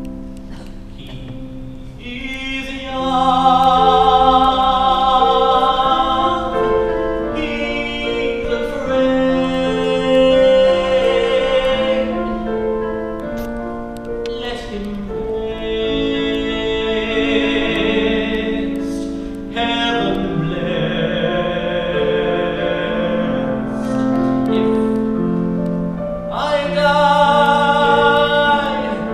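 A solo male voice singing a slow ballad, holding long notes with vibrato, over sustained electric keyboard chords, amplified through a PA.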